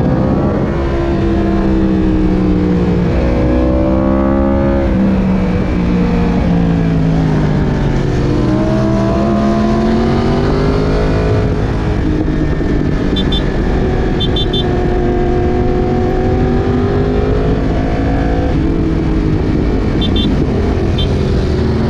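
Yamaha R1's crossplane CP4 inline-four engine, heard on board while riding hard: the revs climb and drop several times, rising about two and eight seconds in, with sharp drops at shifts or off throttle. Wind and road noise run underneath.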